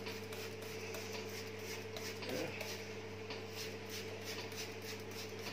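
Hand trigger spray bottle squirting degreaser onto a cast-iron machine base in short, repeated hissing squirts, over a steady low hum.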